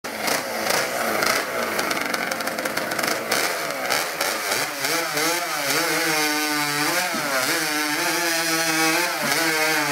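Open-class hot saw (a racing chainsaw) running loud at full throttle. For about the first half the sound is rough and noisy. After that a clear engine note takes over and dips and rises again several times as the throttle is worked.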